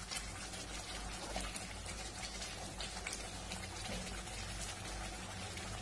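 Thick egg masala gravy bubbling and sizzling in a kadai over a high gas flame, a steady hiss with small pops all through.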